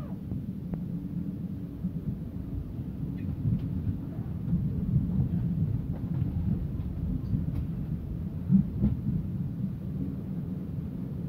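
Commuter train heard from inside the passenger coach while running: a steady low rumble from wheels and running gear, with a few sharp clacks as the wheels cross points and rail joints in the yard, the loudest about nine seconds in.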